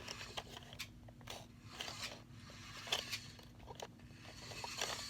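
Faint scattered clicks and rustling from objects being handled at close range, over a faint steady hum.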